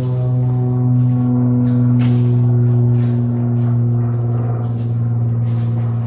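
Background music: a sustained low drone with shifting upper tones.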